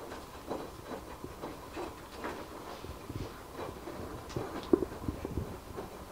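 A cat clambering on a carpeted cat tower: irregular scratches, taps and knocks of its claws and paws on the carpeted posts and platforms, with one sharper knock about two-thirds through.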